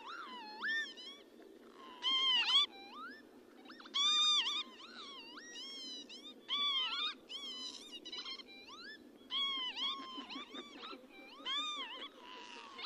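Northern lapwings calling: a quick series of short, slurred calls that rise and fall in pitch, some overlapping, over a faint steady background hiss.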